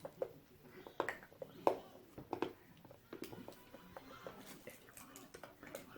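Faint room tone with a few scattered small clicks and rustles, like hands handling packaging.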